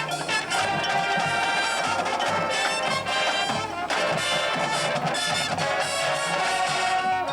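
Drum and bugle corps brass line playing a sustained full-ensemble passage over a pulsing low part.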